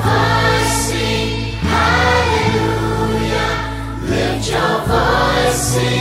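Music: a choir singing long held notes over sustained bass notes that change every second or two.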